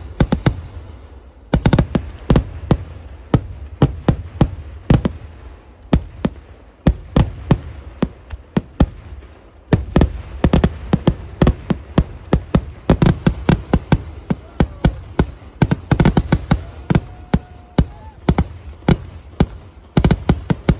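Festival fireworks barrage: a dense, irregular run of sharp bangs and crackling reports, several a second, with brief quieter spells between the volleys.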